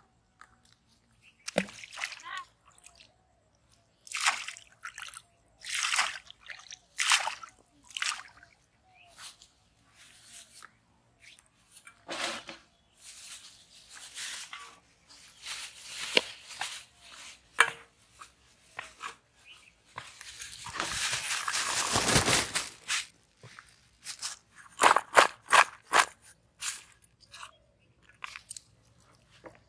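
Hands working wet mud-and-earthworm fishing bait in a steel bowl, with a plastic bag being handled: a string of short rustling, squelching noises, one longer rustle about two-thirds of the way through, then a few quick clicks.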